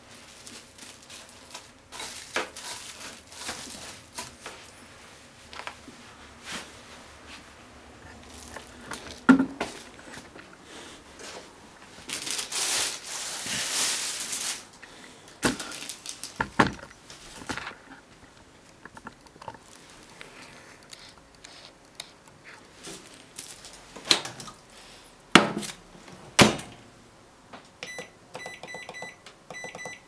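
Kitchen handling sounds: plastic cling film pulled off its roll and stretched over a bowl, with scattered knocks and clunks. Near the end, a Toshiba microwave oven's keypad beeps several times as the cooking time is set.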